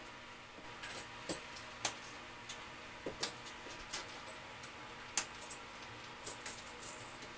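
Irregular light clicks and taps of metal tile edge trim being handled and pressed against the tiled shower wall edge, over a faint steady hum.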